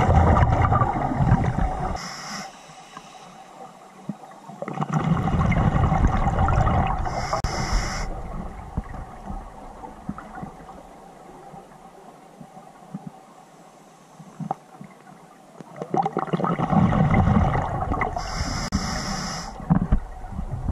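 Scuba breathing underwater, heard through the regulator: three long rumbling gushes of exhaled bubbles, at the start, around five seconds and around seventeen seconds, each with a short hiss from the regulator.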